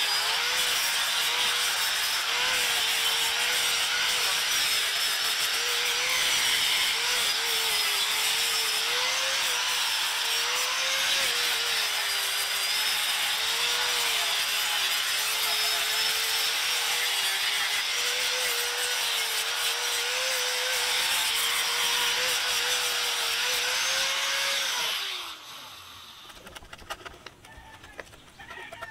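Handheld electric power tool working the wood of a tree stump, its motor pitch dipping and recovering as it is pressed into the wood. A few seconds before the end it winds down and stops.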